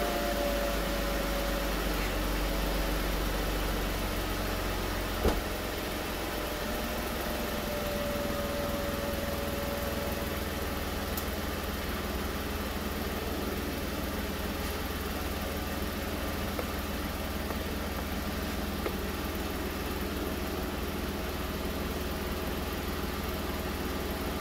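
2015 Jeep Wrangler's 3.6-litre V6 idling steadily with no power-steering squeal, the pump's fluid freshly topped off after a new steering gearbox was fitted. A single sharp click about five seconds in.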